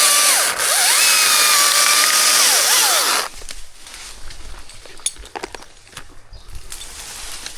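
Two-stroke chainsaw run at high revs for about three seconds, its pitch dipping and recovering near the start, then throttled off suddenly. Scattered knocks and clicks follow at a lower level.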